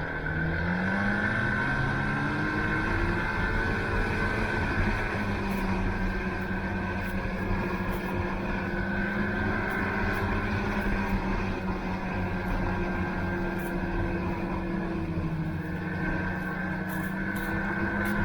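Snowmobile engine running while riding. Its pitch climbs over the first couple of seconds, then holds fairly steady with small rises and dips.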